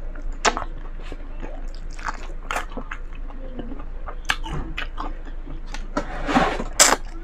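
Close-miked eating sounds: biting and chewing crispy fried chicken, with sharp crunches every second or so and a louder run of crunching near the end.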